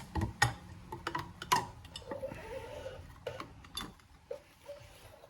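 Scattered sharp metallic clicks and taps from a Torx driver and small screws as the screws come out of a Harley-Davidson primary derby cover, about half a dozen strokes at irregular spacing.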